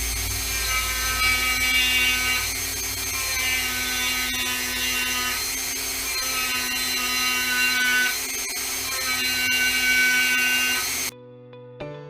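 Small high-speed power tool running on wood, its pitch wavering up and down as it is worked under load. It cuts off suddenly near the end, and plucked guitar music begins.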